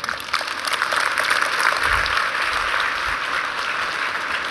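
Audience applauding: a steady round of many hands clapping that eases off slightly near the end.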